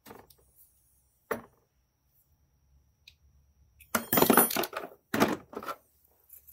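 Steel hose clamp pliers being set back into their moulded plastic case: a single click a little over a second in, then a quick run of clicks and clatter about four seconds in.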